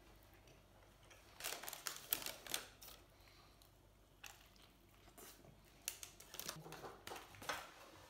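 Paper burger wrapper crinkling as it is handled, in two spells of rustling: one about a second and a half in, and another from about six seconds in to near the end.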